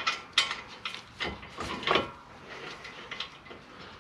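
Metal clinks and scrapes from a brake caliper bracket being held against a new disc rotor while its mounting bolts are started by hand. A few sharp clinks come in the first two seconds, then lighter ticks.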